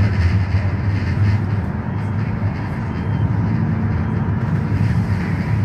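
Steady low rumble of a moving tram running along its rails, heard from inside the car.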